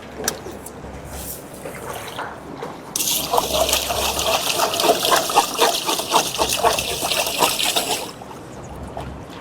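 Water pouring into a pot of rice to wash it. The stream starts suddenly about three seconds in and stops shortly before the end, after a few light knocks of handling.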